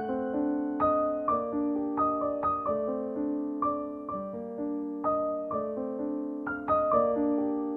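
Background piano music: a melody of single notes over sustained chords.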